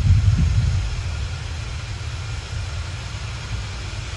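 Low, steady outdoor rumble in amateur footage of a burning chemical plant, a little louder for the first second and then easing.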